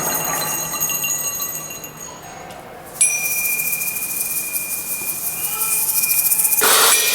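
Bell-like metal percussion ringing and fading out. About three seconds in, a sudden new sound starts: one high tone held steady over a high hiss. A brief noisy burst follows near the end.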